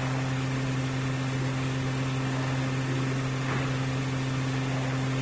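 Steady low electrical hum with an even hiss: the background noise of an old recording, heard in a pause between spoken sentences.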